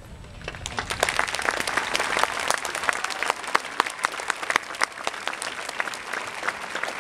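Audience applauding, starting about half a second in and building quickly, with sharp individual claps standing out close by.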